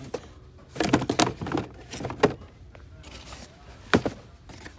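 Cardboard shoeboxes and sneakers being handled: a cluster of knocks and rustles about a second in, a sharp knock a little after two seconds, and another near the end.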